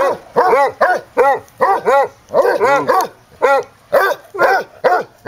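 Basset hound barking repeatedly during play, short barks coming about two or three a second, often in quick pairs, which stop near the end.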